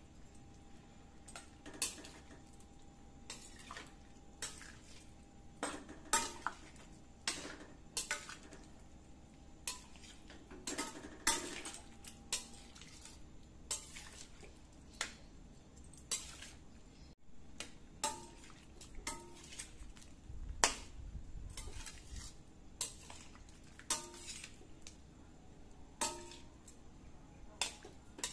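Metal spatula clinking and scraping against a metal wok while a soupy coconut-milk curry is stirred slowly, with irregular sharp knocks about every second or so, some ringing briefly.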